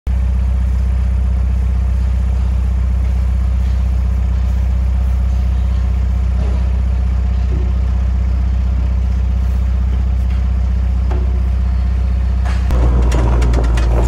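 Small air-cooled engine of a motorized calf cart idling steadily. About a second before the end it runs louder, with rattling clicks, as the cart moves off.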